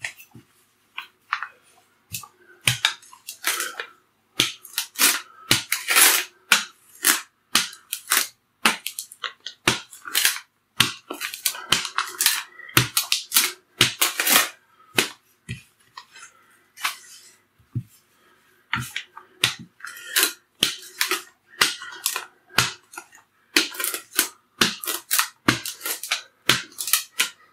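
Rolling pin working thin pastry dough, with many sharp, irregular crackles and clicks as spilled sugar grains are crushed under it.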